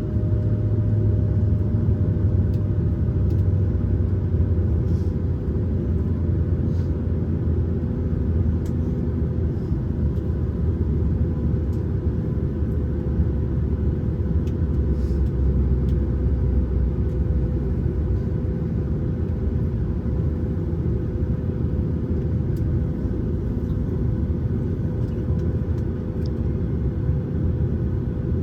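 Cabin noise inside a Boeing 737-900ER: a steady low rumble with a constant hum, and a few faint ticks.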